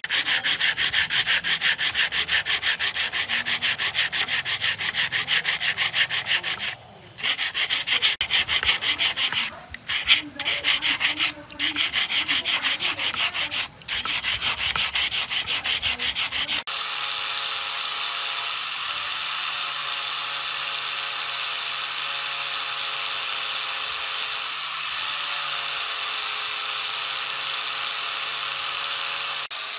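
Hand sanding with wet sandpaper on a cast metal housing, quick back-and-forth scraping strokes with a few short pauses, smoothing a hardened filler patch. About halfway through this gives way to an electric angle grinder with an abrasive disc running steadily, grinding the same patch flush.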